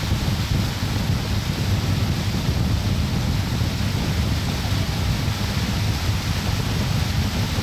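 Wind buffeting the microphone of a moving boat, a steady low rumble, over a fainter rush of water.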